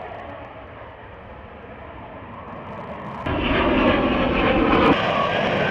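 Lockheed Martin F-35B Lightning II's F135 jet engine roaring as the fighter flies its display, fainter at first, then suddenly much louder about three seconds in.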